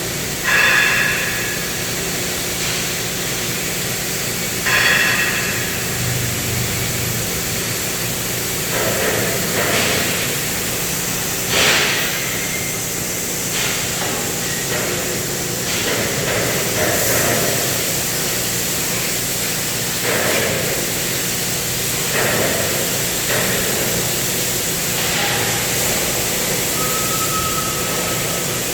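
CNC cutting torch running, a steady loud hiss with a few brief louder flares.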